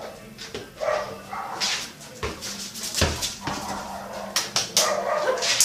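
Dog barking and yipping in short, irregular bursts, with a thump about three seconds in.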